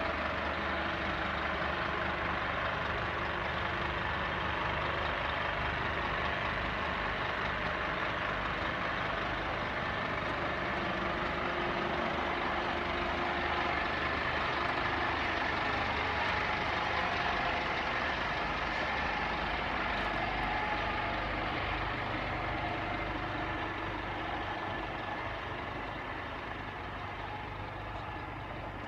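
Scania P230 rear-loader garbage truck's diesel engine idling steadily, growing a little fainter near the end.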